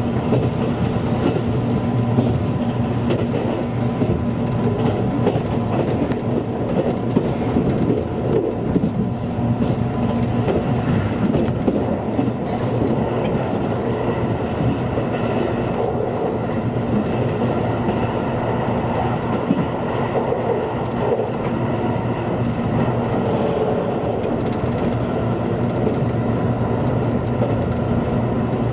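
A train running at speed, heard from inside the carriage: a steady rumble of wheels on the rails under a constant low hum.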